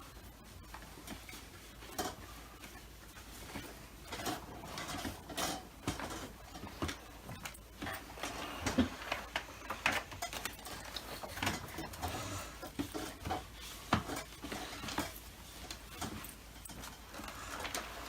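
Hands cleaning and handling the plastic body of a Dyson DC25 vacuum cleaner: irregular light clicks, knocks and rubbing, with no motor running.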